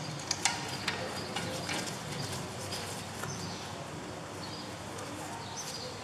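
Light clicks and taps from hands working parts at a car's front brake caliper, several in the first couple of seconds and fainter ones after.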